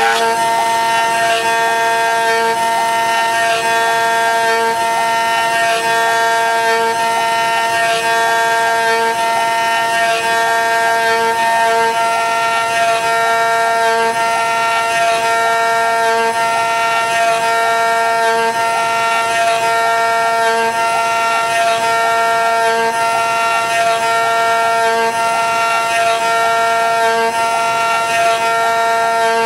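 CNC router carving a laminated Karri hardwood banjolele neck blank: a steady high whine with a lower tone that cuts in and out as the machine moves, and a faint tick repeating about once a second.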